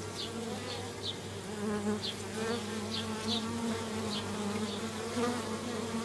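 Honeybees, a Carniolan and Italian mix, buzzing at the hive entrance: a steady hum whose pitch wavers as individual bees fly in and out close by.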